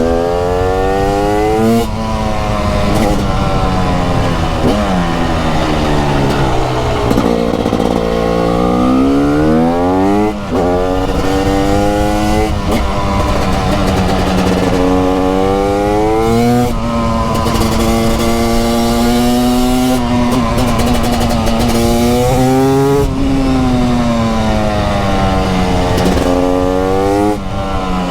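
TM SMR 300 two-stroke supermoto engine under hard acceleration, its pitch climbing and dropping sharply at each upshift, then falling away as it slows, again and again.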